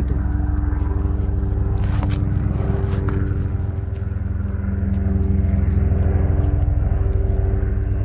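Steady low hum of an idling engine or similar running machine, holding a few even tones throughout, with a brief knock about two seconds in.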